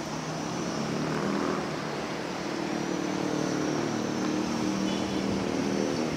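Steady engine drone of passing motor traffic, a low hum with a few held pitches that swells slightly about a second in and again later.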